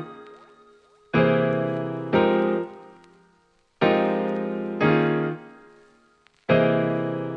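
Piano music: pairs of chords struck about a second apart, each ringing on and fading, with a new pair every two and a half seconds or so.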